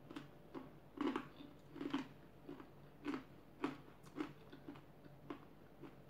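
A person chewing crispy food in steady bites, about two chews a second, each chew a short click.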